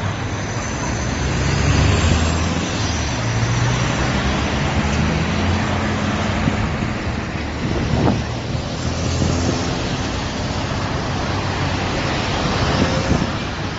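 Road traffic: engines of vehicles running and passing, over a steady rush of traffic noise, louder in the first few seconds.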